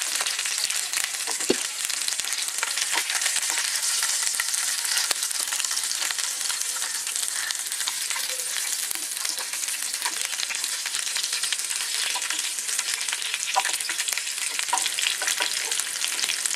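Chicken pieces frying in a little oil in a frying pan: a steady sizzle, with scattered light clicks and scrapes as a metal utensil turns the pieces over once one side has browned.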